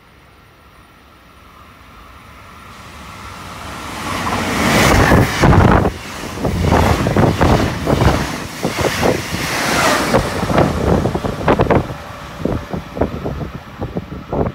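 A Trenord regional electric train running through the station at speed. The rumble and rush of the train grow as it approaches and are loudest about five seconds in. Rapid clattering of wheels on the rails follows as the cars go by.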